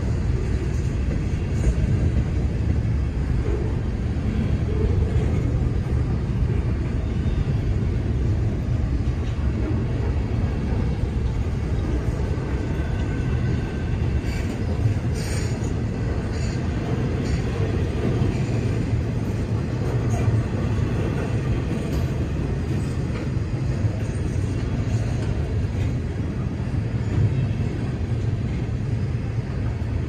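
Double-stack intermodal container well cars of a freight train rolling steadily past: a continuous low rumble of steel wheels on rail.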